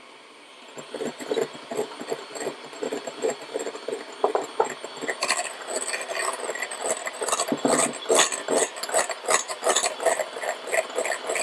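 Kenwood electric hand mixer whisking egg whites to meringue in a glass bowl: the beaters clatter and scrape irregularly against the glass from about a second in, busier in the second half.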